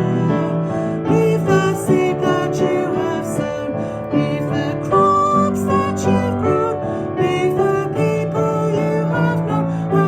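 Recorded song music led by piano, with held notes changing every second or so.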